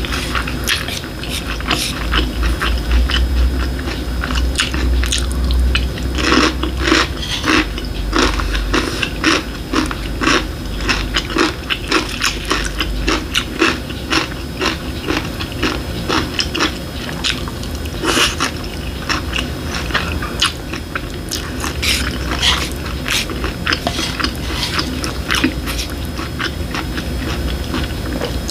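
A person eating fried egg on rice and tomato ramen: chewing and biting with many short, wet mouth clicks throughout.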